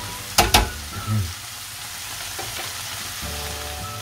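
Mushrooms, onion and garlic sizzling steadily in a nonstick frying pan. A couple of sharp knocks of a spatula against the pan come about half a second in.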